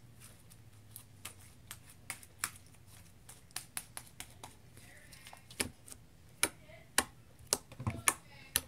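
Homemade glue-and-liquid-starch slime being squeezed and pressed between the hands, giving sharp wet pops and clicks. They are sparse at first, then louder and about two a second in the second half.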